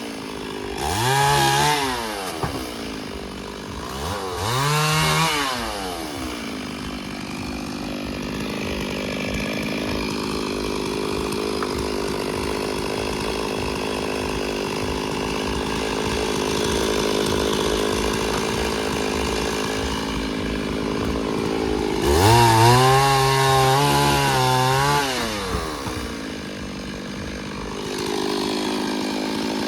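Two-stroke chainsaw blipped twice at the start, then running steadily under load as it cuts through wood for about fifteen seconds, then revving high again near the end.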